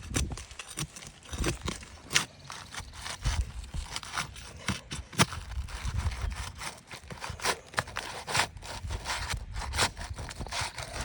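Irregular scraping, clicking and knocking as asphalt roof shingles are worked loose, the seal strip being broken and roofing nails pried out.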